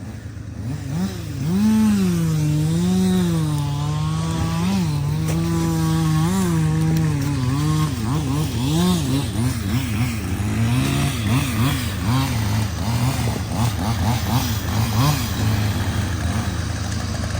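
Chainsaw engine running and cutting, its pitch rising and falling as the bar takes and eases off the load. A steady low engine drone runs underneath.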